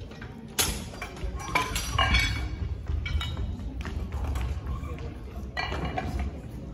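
Barbell weight plates and collars being slid on and fastened by the loaders: a series of sharp metal clanks and clinks, the loudest about half a second and two seconds in.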